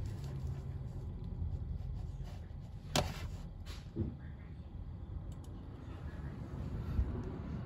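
Low steady hum, with one sharp click about three seconds in and a soft knock near the end.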